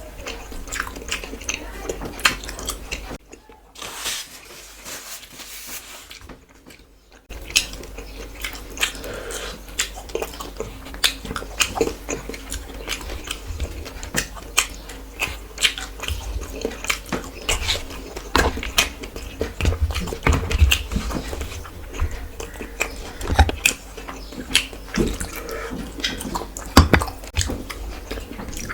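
Close-miked eating: chewing and mouth smacking with many quick, irregular wet clicks. It drops quieter for a few seconds about three seconds in.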